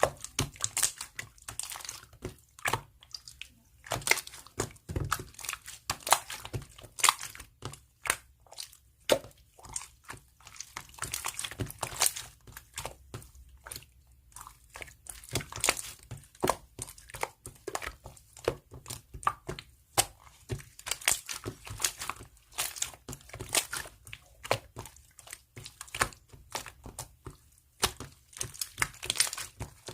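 Slime being squeezed, stretched and pressed by hand, giving dense, irregular crackling pops and clicks in quick clusters.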